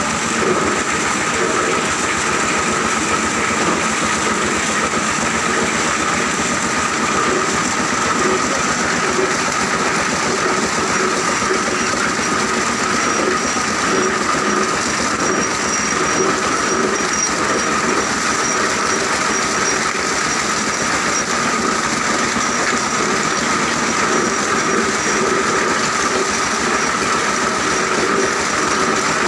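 Plastic-recycling machinery, a shredder and chain-driven spiked-drum cleaner, running steadily as it works shredded plastic sacking. The noise holds at a constant level, with a steady tone over the mechanical din.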